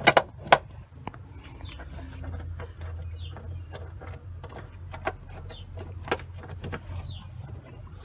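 Sharp metal clicks and light taps as a seat belt's lower anchor plate and its 14 mm bolt are handled and fitted by hand: two loud clicks right at the start, a few more scattered later, over a low steady hum.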